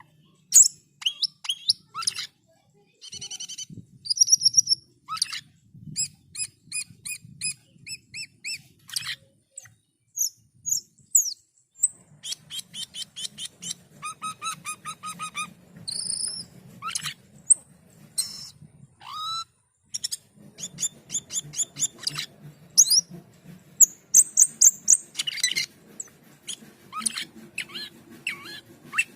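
Asian glossy starling (cucak keling) in full song: a fast, varied stream of sharp chips, rapid trills and short whistled notes, some falling and some rising, with short pauses between phrases.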